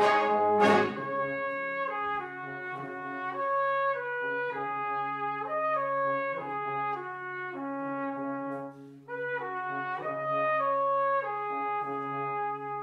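Brass band playing: a loud full-band chord with sharp accented hits, then about a second in it drops to softer held chords, with a melody moving step by step over sustained low notes.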